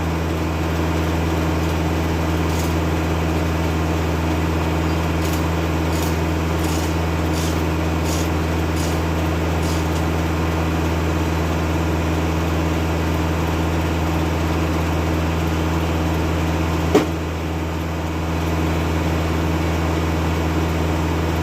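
Kubota tractor's diesel engine running steadily, driving a Foley-Belsaw circular sawmill through the PTO. A single sharp knock comes about 17 seconds in.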